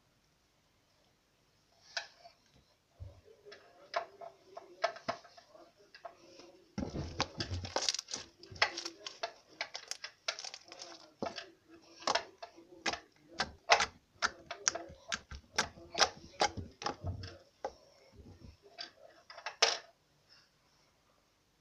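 Red slime being squeezed and kneaded by hand, giving off a run of short, sharp wet clicks and pops, thickest through the middle and thinning out near the end.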